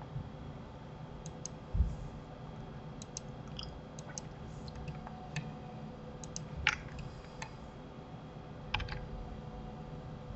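Computer keyboard keys and mouse buttons clicking: a dozen or so short sharp clicks at irregular intervals, with one dull thump about two seconds in. A faint steady hum runs underneath.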